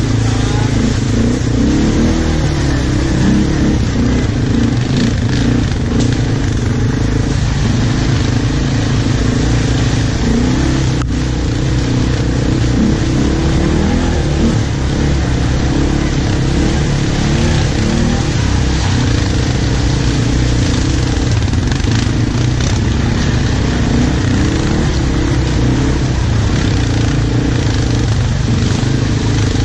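ATV engine running under way on a rough trail, its revs rising and falling continually.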